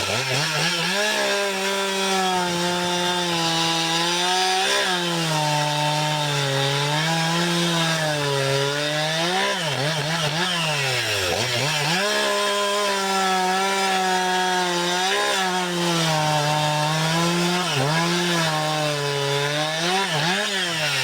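Husqvarna 266XP two-stroke chainsaw, fitted with a new piston, running at high revs. Its pitch wavers and drops sharply before climbing back about six times.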